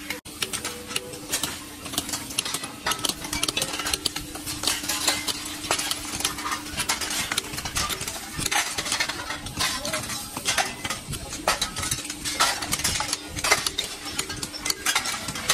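Scrap metal clattering and clinking as pieces of scrapped electric motor housings are handled and tossed onto a pile, in irregular knocks throughout, with a steady low hum underneath.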